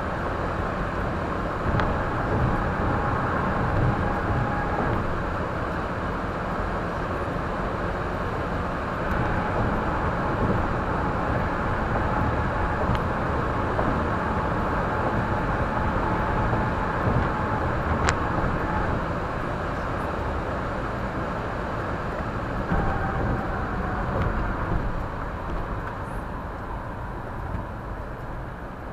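Steady road and engine noise of a car driving, heard from inside the cabin through a windshield-mounted dashcam's microphone.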